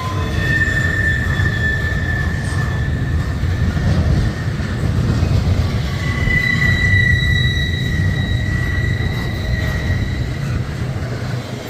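Railroad cars rolling past with a steady heavy rumble, their wheels squealing in long high-pitched tones against the rail; the squeal is strongest from about six seconds in.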